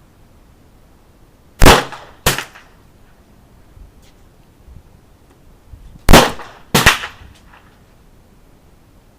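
Four gunshots on a shooting range, fired in two quick pairs: two shots about two-thirds of a second apart near the two-second mark, then two more the same distance apart about four seconds later. Each crack is followed by a short echo.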